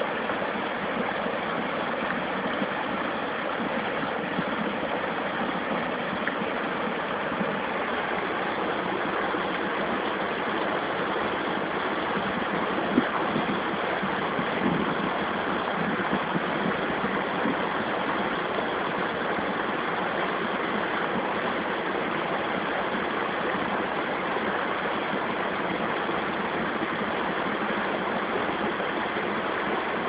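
Fountain geyser jets foaming up and splashing back into the pool: a steady rushing of water, with a couple of slightly louder splashes about halfway through.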